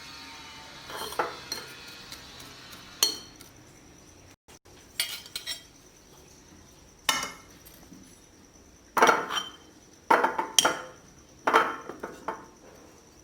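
A dozen or so sharp clinks and knocks against a jar, irregularly spaced and loudest in the second half, as sliced beets and sugar are layered into it.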